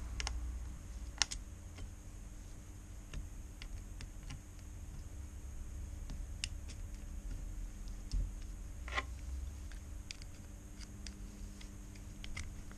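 Scattered small clicks and ticks of a thin metal tool prying at the bottom edge of an iPhone, beside its stripped bottom screws, to lift the screen. The sharpest clicks come about a second in and about nine seconds in, over a steady low hum.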